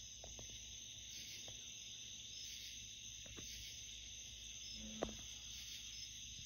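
Faint, steady high-pitched chorus of night insects such as crickets, with a single soft click about five seconds in.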